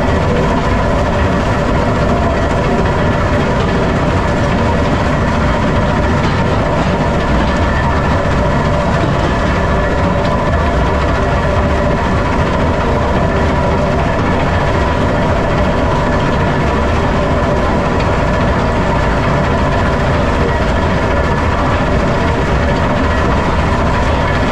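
Metso 130 jaw crusher running under load: a steady, loud mechanical din of the vibrating feeder and crushing, with blasted limestone rattling over the feeder's steel bars and a steady whine running through it.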